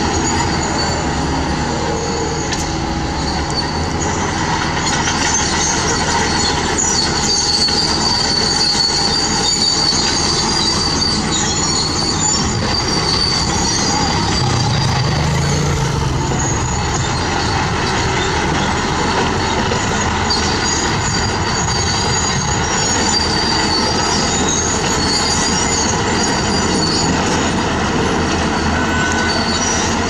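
Heavy construction machinery running steadily: diesel engines, with high-pitched metallic squeals that come and go, typical of crawler tracks.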